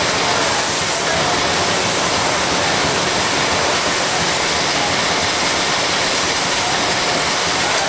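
Steady, loud rushing noise aboard a moving tug boat: wind and water, unbroken and even throughout.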